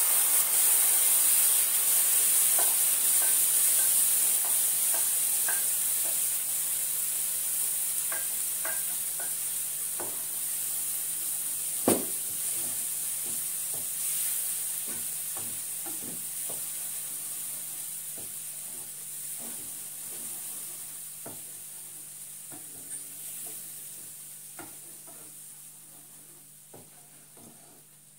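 Ground masala paste sizzling in a pan of butter-fried onion and tomato while a spoon stirs it, scraping and tapping the pan now and then. The sizzle is loudest at first and dies down steadily, and there is one sharp knock about twelve seconds in.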